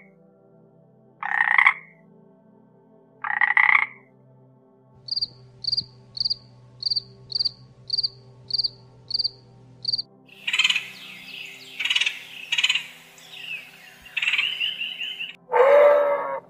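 Frog croaking twice, then a grasshopper chirping in an even run of high chirps about two a second, which gives way to denser, rasping calls. Near the end a loud, lower-pitched animal call begins.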